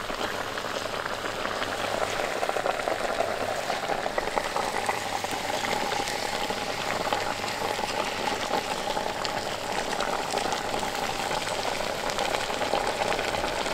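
Liquid boiling and sizzling in a hot cast-iron Dutch oven while raw spareribs are laid into it: a steady crackling sizzle.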